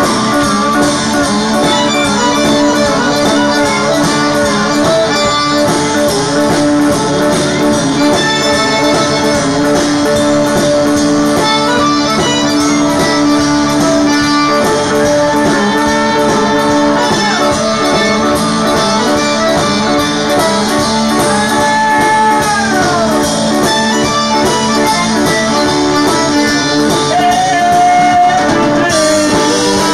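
Live Cajun band music: a Cajun diatonic button accordion carrying the tune over guitar and a steady beat. Near the end the accordion player's voice comes in singing.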